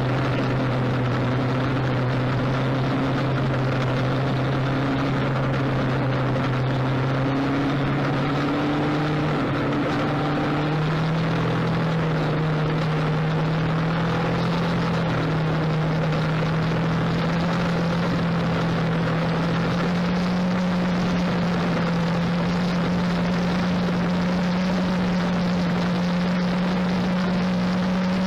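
A steady engine drone over a rushing, wind-like noise, its pitch creeping slowly upward from about a third of the way in.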